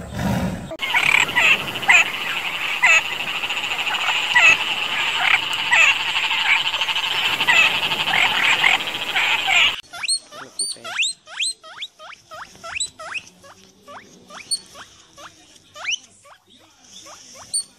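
Frog chorus: a dense, steady trilling with many overlapping calls. About ten seconds in it cuts abruptly to a sparser run of short, sharp chirps, roughly two a second.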